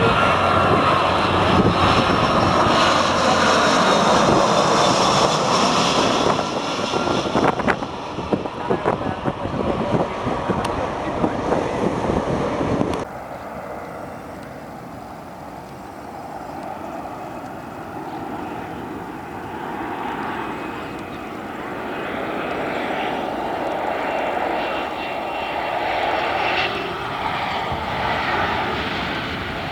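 Airliner engines, loud, with a high whine over the rush, as a plane passes close. About thirteen seconds in the sound cuts off abruptly to a quieter airliner's engine noise that slowly grows louder.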